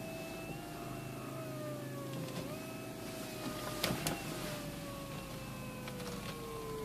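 Opel Astra H electro-hydraulic power steering pump whining as the wheel is turned. The whine jumps up in pitch three times and sinks slowly in between, over a steady low hum, with a couple of sharp clicks about four seconds in. The howl is the sign of a failing pump: replacing its bearings did not cure it, and the pump had to be replaced.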